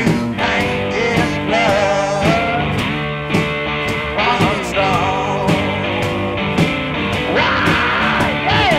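Blues-rock music: guitar playing over a steady drum beat.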